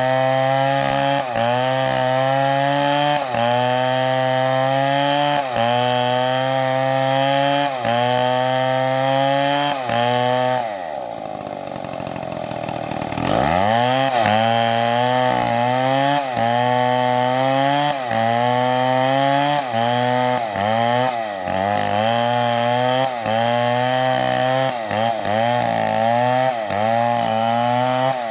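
Stihl MS720 chainsaw cutting through wood at full throttle, its engine pitch sagging and recovering about once a second as the chain bites. About ten seconds in the throttle is released and the engine drops to idle, then revs back up about three seconds later and keeps cutting.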